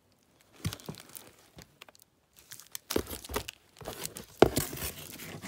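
Packaging crinkling and rustling as items are handled and pulled from a gift box: scattered crackles at first, growing busier about three seconds in, with one sharp loud crackle near the end.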